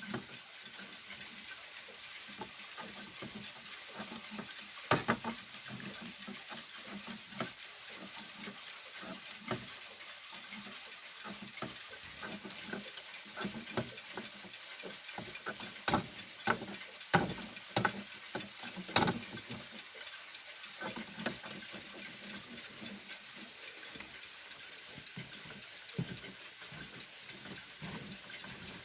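Light, irregular clicks and small knocks over a steady hiss, close to the movement of an old ATO-type electric pendulum clock.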